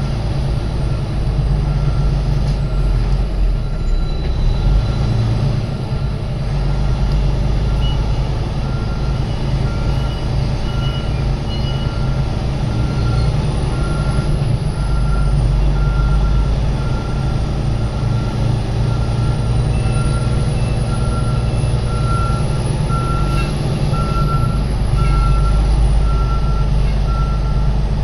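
Truck engine running steadily while driving, heard from inside the cab as a strong low rumble. Over it, a short high beep repeats evenly about once a second.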